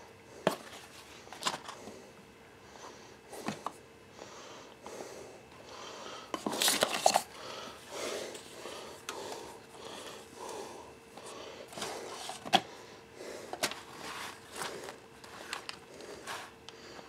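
Handling noise from unpacking small microphone accessories: scattered clicks and light knocks as parts are picked up and set down, with paper and plastic rustling, the loudest rustle about seven seconds in.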